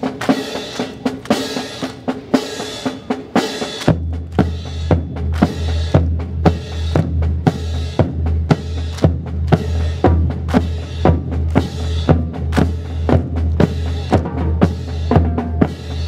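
Drum-heavy music with a steady beat of bass drum and snare. About four seconds in, a deep steady bass comes in underneath.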